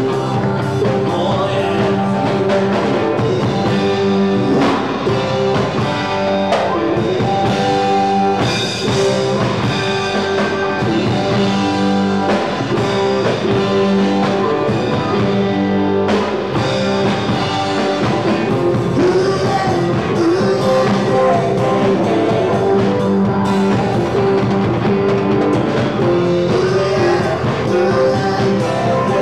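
Live rock band playing a rock-and-roll number: electric guitars, electric bass and drum kit, with singing.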